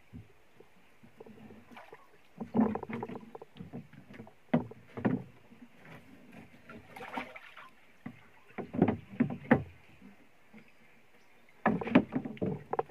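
Irregular bursts of knocks, thumps and water splashes as a landing net with a fish in it is hauled over the side of a wooden boat and onto its slatted deck. The loudest cluster of knocks comes near the end, as a wooden paddle is handled against the boat.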